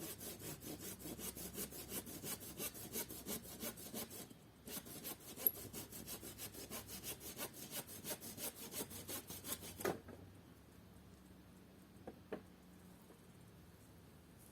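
Hand saw cutting through a wooden board in quick, even strokes, about four a second, with a short break about four seconds in. The sawing stops at about ten seconds, and two faint knocks follow.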